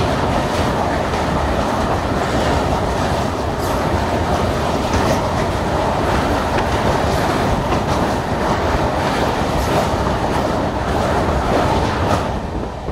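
Duranto Express passenger coach running at speed, heard through an open window: a steady rumble of wheels on rails with scattered clacks, dropping a little in level near the end.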